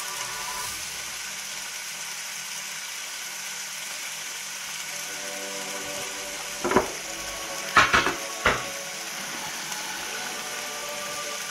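Turkey roulades and onions frying in a pan with a faint, steady sizzle. A few sharp knocks and clatters come about seven and eight seconds in.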